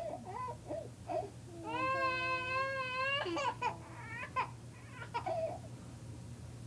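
A toddler crying in anger: a few short cries, one long wail about two seconds in, then broken sobbing cries that die away about five seconds in.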